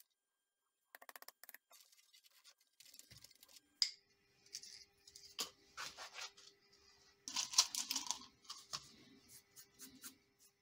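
Fine sand and small rusty screws emptied from a plastic tumbler drum onto a workbench, then a hand spreading and raking through the sand: scattered small clicks and gritty scraping, busiest about seven to eight seconds in.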